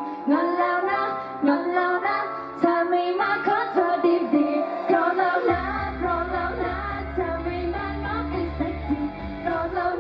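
Thai idol-pop song performed with female vocals sung into handheld microphones over pop backing music. About halfway through, a deep bass beat comes in under the singing.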